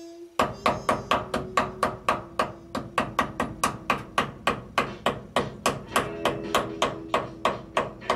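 Claw hammer striking quickly and steadily, about four blows a second, fastening chicken wire to wooden framing.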